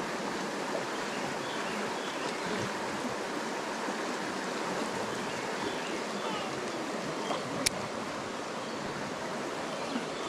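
Small mountain trout creek flowing, a steady rush of water. A single sharp click about three-quarters of the way through.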